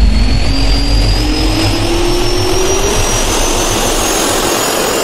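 Jet turbine spooling up, as an intro sound effect: a rising whine over a steady rushing roar.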